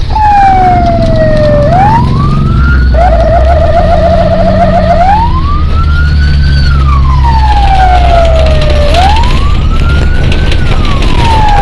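Fire brigade vehicle's electronic siren, heard loud from inside the cab as the vehicle responds to a fire. It wails slowly up and down, switches to a fast warble for about two seconds, then goes back to the slow wail. A steady engine rumble runs underneath.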